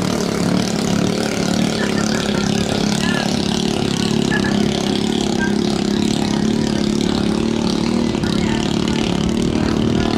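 Underbone motorcycle engines of small racing longboats running flat out in a steady drone.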